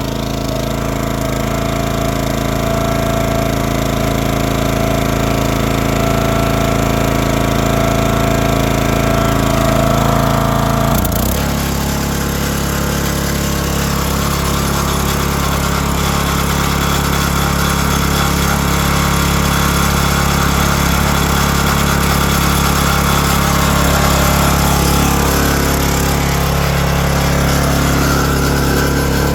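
Oregon 3000 Series log splitter's 6.5 HP Kohler single-cylinder engine running steadily just after starting, staying running with the faulty low-oil sensor unplugged. Its note changes about eleven seconds in.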